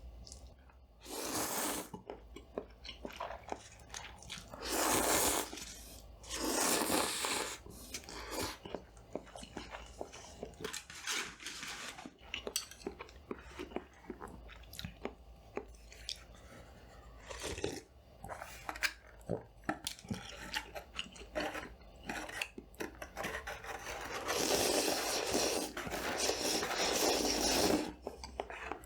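Close-miked eating of convenience-store food: chewing and crunching with many small mouth and utensil clicks, broken by a few louder noisy stretches lasting a second or several seconds. A steady low hum from a studio light runs underneath.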